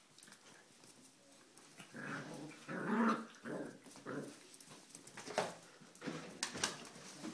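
Welsh Pembroke corgi puppy growling in play while wrestling, loudest about two to four seconds in, followed by a few sharp knocks.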